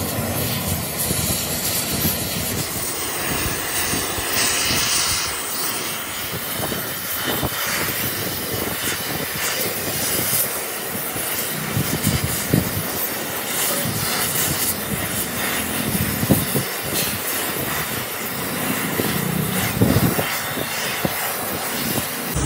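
Gas welding torch flame hissing steadily as filler rod is melted into a broken cast-iron tractor engine block, with a few sharp crackles.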